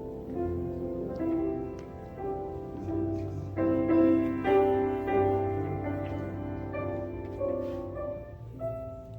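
Slow instrumental music: a melody of held notes, one after another.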